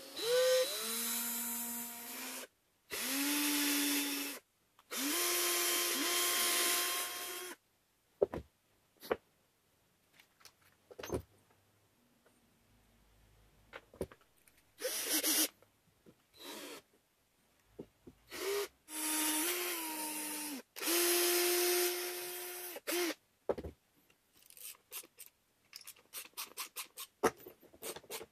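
Cordless drill motor running in six short bursts, each rising in pitch as it spins up and dipping as it takes load. Clicks and knocks of hand work come between the bursts, and a run of small quick ticks and scratches comes near the end.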